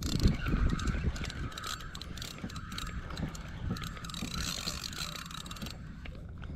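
Penn spinning reel being cranked under load, its gears whirring and clicking in a regular cycle of about one and a half swells a second, once per turn of the handle; the cranking stops about six seconds in.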